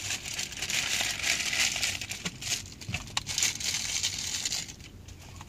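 Clear plastic packaging bag crinkling and rustling as it is handled and pulled open to unpack a magnetic-mount antenna, with a couple of small knocks, stopping about four and a half seconds in.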